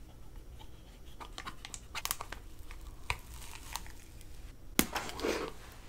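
Close-miked eating sounds: a run of small crackling, crinkly clicks in the mouth, then a sharp snap about five seconds in as a bite breaks off an edible candy hairbrush, followed by brief crunching.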